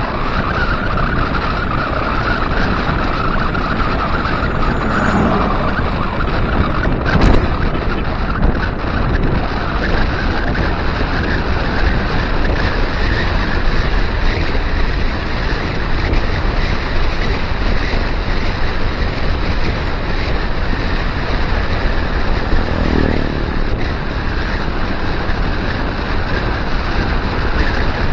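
Wind rushing over an action camera's microphone on a bicycle rolling along at about 21–24 mph, a steady loud rush. A single sharp knock about seven seconds in.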